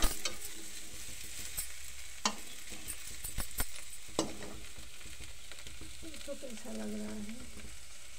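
Potato cubes frying in oil in a metal kadhai with a steady sizzle, stirred and scraped with a perforated steel spatula that knocks sharply against the pan several times in the first half.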